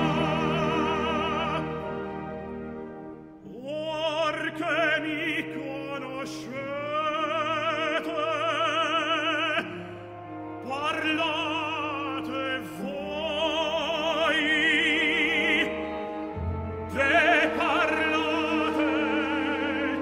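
Opera music: a high operatic voice singing held notes with wide vibrato over orchestral accompaniment, in several phrases with short breaks between them.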